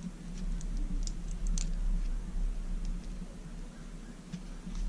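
Light plastic clicks and taps from fingers handling a micro whoop quad's frame, ducts and camera/VTX unit as it is pressed onto the flight controller's pins. A quick run of clicks comes in the first half, a few more near the end, over a steady low hum.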